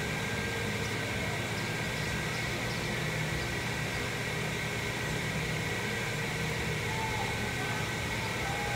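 Steady mechanical hum and hiss with a faint constant whine, the even background drone of machinery running throughout.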